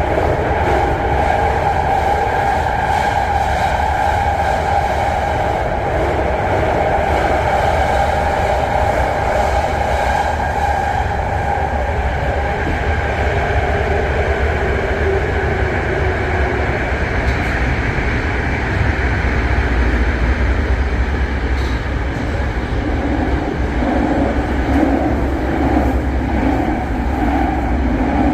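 BART train running on the rails, a steady rumble with a sustained whine over it.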